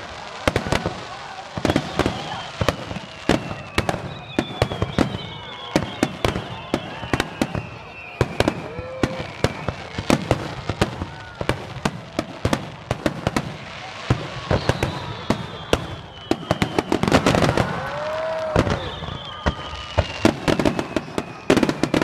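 Aerial fireworks bursting in rapid, irregular bangs and crackles, with several high whistles that slide downward in pitch. The bursts grow denser and louder for a couple of seconds around three-quarters of the way through.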